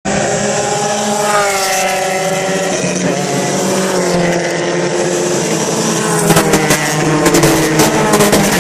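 Porsche 944 race cars' four-cylinder engines at speed, the pitch falling and rising as they brake and accelerate. About six seconds in it grows a little louder and choppy as cars pass close by.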